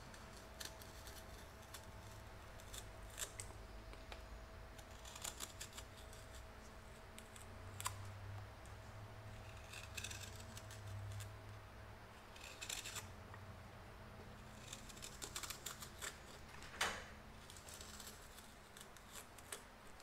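Freshly sharpened spoon knife slicing shavings from soft white pine: faint, crisp cuts in short clusters every couple of seconds.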